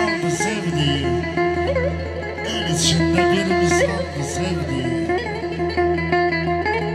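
Live band music: a plucked-string instrument playing a winding melody over steady held notes.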